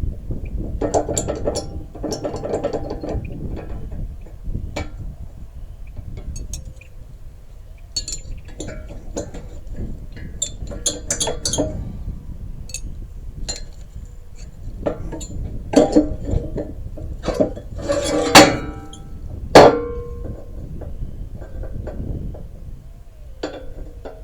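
Irregular metal-on-metal clanks and knocks on the steel parts of a skid steer wood splitter, typical of working at a stuck pin. A few loud strikes about three quarters of the way through ring briefly, over a steady low rumble.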